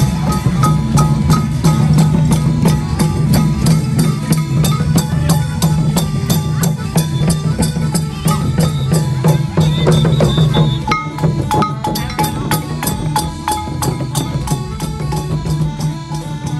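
Khmer traditional procession music: a quick, even beat of wood-block-like percussion and drum strikes over a steady low drone and held melody notes.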